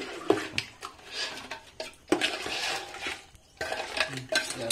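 Metal spoon stirring crab curry in a large metal cooking pot, scraping and knocking against the sides with scattered sharp clinks.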